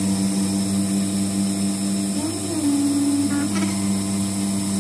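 Emco Compact 5 CNC lathe running its spindle at 1000 rpm through a programmed facing pass, a steady motor hum and whine. About two seconds in, one tone shifts briefly in pitch for about a second.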